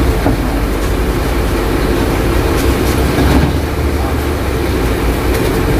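Steady low drone of a running truck engine, with a held mid tone over a low hum, and a few faint knocks and scrapes about halfway through.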